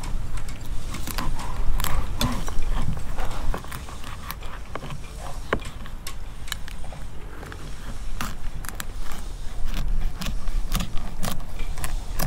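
Fillet knife working through a tub gurnard on a plastic cutting board: scraping along the bones with many short sharp clicks of the blade, over a steady low rumble. It is louder for the first three and a half seconds, then quieter.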